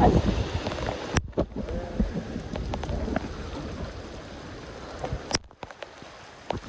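Heavy typhoon rain, a dense hiss of falling water with scattered drips and splashes. It cuts out sharply twice.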